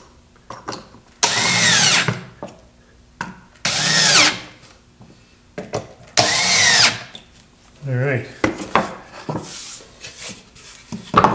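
Cordless drill driving drywall screws into a wooden jig in three short runs, each motor whine rising and then dropping as the screw seats below the surface. Scattered clicks and knocks of wood being handled follow near the end.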